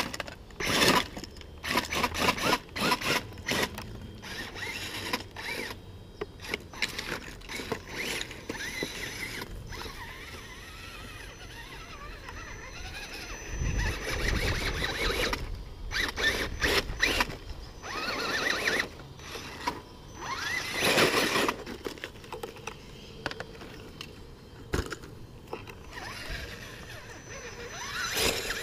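RC rock crawler with a Tekin brushless motor driving its geared drivetrain in short spurts of throttle, a whine that rises and falls, while its tires and chassis knock and scrape over logs and a shingled ramp. The first part is a quick run of clicks and knocks; there is a low thud about halfway through.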